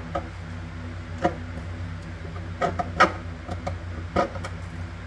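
Screwdriver scraping and knocking at old plumber's putty around a sink's drain opening: a few short, sharp scrapes and clicks, the loudest about three seconds in, over a steady low hum.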